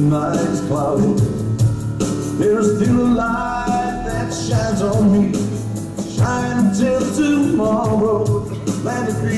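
Live music: a slow song played on keyboard, with a wavering lead melody over sustained chords.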